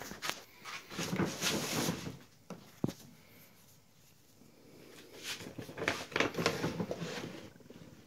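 Large plastic bag of dry cat kibble crinkling and rustling as it is handled, in two spells, one about a second in and another from about five to seven and a half seconds, with a sharp knock in between.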